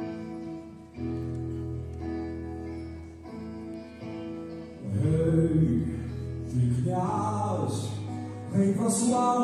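Live orchestra playing held chords as an introduction, then about five seconds in a male singer comes in, singing over the accompaniment through the hall's sound system and louder than the intro.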